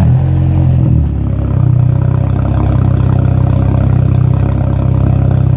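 Car engine and exhaust droning steadily while driving, with a brief dip and change in pitch a little after a second in before settling back to a steady drone.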